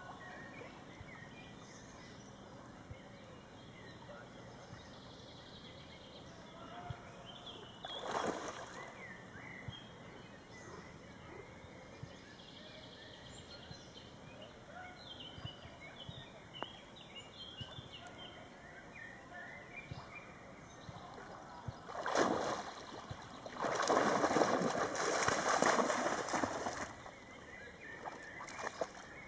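A Finnish Lapphund wading and swimming in shallow lake water while hunting fish: soft sloshing, a short splash about eight seconds in, and a longer run of loud splashing near the end.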